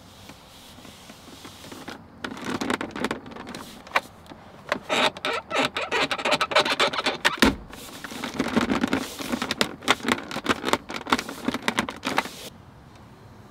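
Squeaky interior plastic of a 2007 Volvo XC70's centre armrest creaking, clicking and scraping as it is pressed and its lid is lifted. It starts about two seconds in and stops near the end, with one heavy thud about halfway through.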